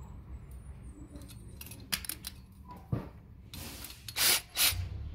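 Small metal hardware and a cordless driver being handled on a workbench: light clicks and a knock, then two short, loud bursts of handling noise about half a second apart near the end.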